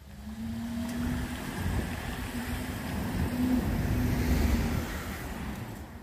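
A motor vehicle driving past, its engine a steady hum with a low rumble that grows louder toward about four and a half seconds in and then fades.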